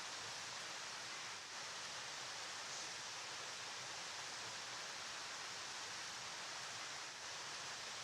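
A flowing river's steady, even rush of water, heavy in hiss.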